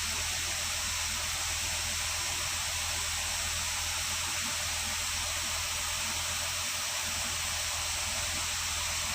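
Jeep Grand Cherokee engine idling after an auxiliary battery replacement: a steady low hum under an even hiss, unchanging throughout.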